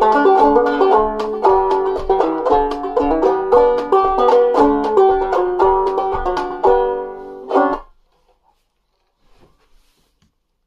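Clawhammer-style banjo playing a country tune in a steady rhythm, ending on a final strummed chord about seven and a half seconds in that stops short.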